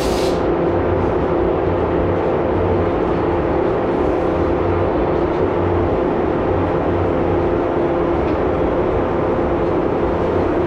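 Spray booth's exhaust fan running with a steady drone and hum. A short hiss of the spray gun comes right at the start.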